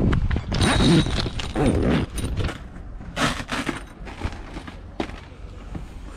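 Canvas boat canopy being handled and unfastened: irregular rustling of heavy fabric with a few sharp clicks and knocks, loudest in two bursts in the first half.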